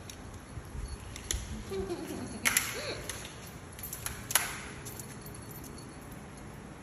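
A small dog tugging and biting at its leash on a tiled floor: scattered clicks and scuffles, with two sharp snaps, the louder about two and a half seconds in and another about two seconds later, and a brief short pitched sound between them.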